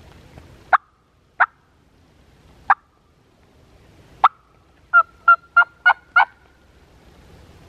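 Hunter's turkey call imitating a hen: four sharp single clucks spread out, then a quick run of five yelps, calling to check whether a gobbler answers.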